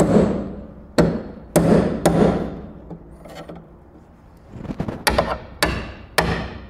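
A hammer striking a spot-weld removal chisel, driving it between the steel sill panel and the inner panel to split the spot welds. Each blow rings. There are about four blows roughly half a second apart, a pause of about two seconds, then another run of blows.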